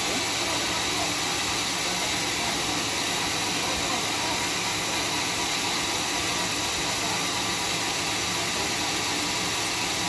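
Homemade band sawmill running, a steady even hiss of the blade and motor with no breaks or changes.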